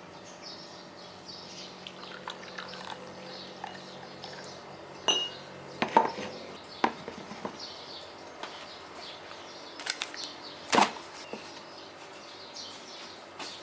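Dishes and utensils clinking and knocking against each other, with a few sharp clinks about five, six and eleven seconds in.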